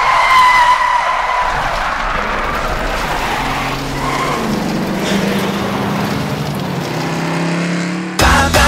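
Car-skid sound effect: a tyre squeal that slides slightly down in pitch and fades over about two seconds, followed by a noisy rumble with a low hum. Pop music comes back in near the end.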